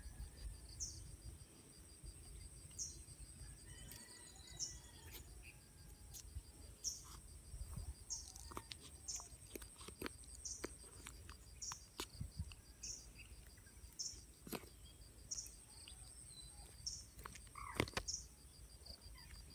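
Faint chorus of insects: a steady high buzz and a fast even ticking, with a short high chirp that repeats about once a second. Scattered faint clicks and knocks come from handling.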